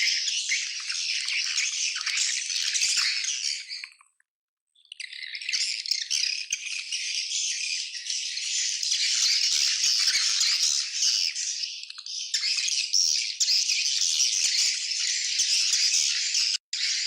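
A swiftlet colony twittering: many high, rapid chirps overlapping into a dense, continuous chatter. It cuts out suddenly for under a second about four seconds in, and drops out again very briefly near the end.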